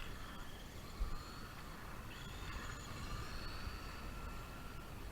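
Small electric motor and drivetrain of an RC drift truck whining, its pitch slowly rising and falling with the throttle, with wind rumble on the microphone and a thump about a second in.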